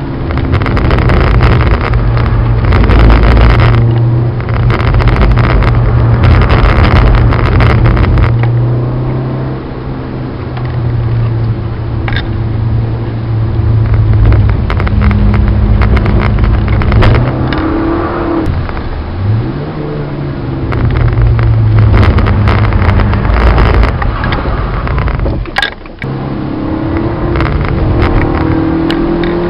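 Citroën Saxo VTS's four-cylinder engine heard from inside the cabin, pulling at high revs on a wet track with a hiss of tyre spray. The revs drop and climb again a few times as the driver lifts and shifts, with a short sudden dip in level about three-quarters of the way through, and the engine rising in pitch again near the end.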